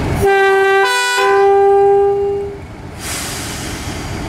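Two-tone horn of a Class 31 diesel locomotive sounding once: a lower note, a brief higher note about a second in, then the lower note held until about two and a half seconds. Near the end comes the locomotive's diesel engine running as the train moves off.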